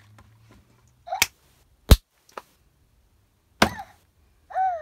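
Hatchimals electronic toy hiccuping: a few short, sharp 'hic' sounds, some falling in pitch, spaced a second or two apart, with one sharp knock about two seconds in.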